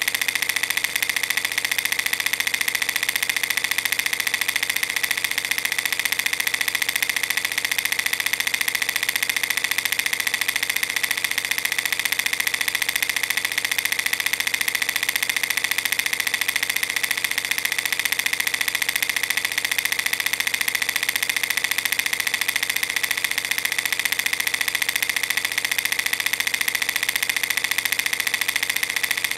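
Film projector running: a steady, rapid mechanical rattle that does not change.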